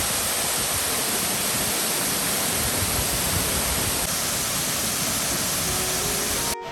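Waterfall crashing down from a great height onto rock: a steady, loud rush of falling water, with no change in pitch or rhythm. It cuts off suddenly just before the end.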